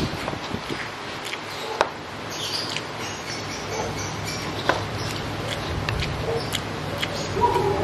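A person eating the last fried noodles from a paper bowl: chewing and mouth sounds, with a few sharp clicks of a fork against the bowl.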